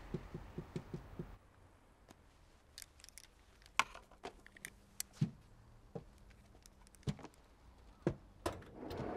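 A quick run of soft knocks, then sparse sharp clicks and knocks of equipment being handled in a cramped space, among them the controls of a reel-to-reel tape recorder.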